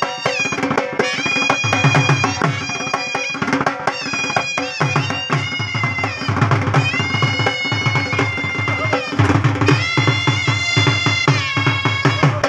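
Live Punjabi dhol party: dhol drums beaten with sticks in a steady, driving rhythm under shehnai reed pipes playing a melody of long held notes with slides between them.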